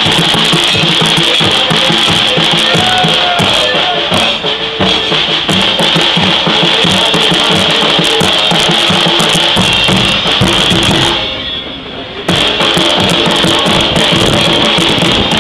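Bass drums (bombos) and cymbals (platillos) played in a fast, continuous beat, loud and crowded with strikes; the playing drops away briefly about eleven seconds in and starts again about a second later.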